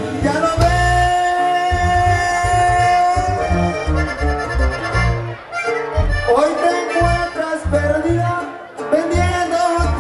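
Live Tierra Caliente dance band playing: a long held melody note in the first few seconds, then shorter phrases over a bouncing bass line.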